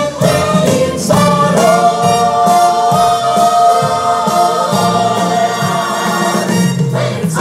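Upbeat show tune sung by a chorus of voices over band accompaniment, with one long held note from about two to nearly five seconds in.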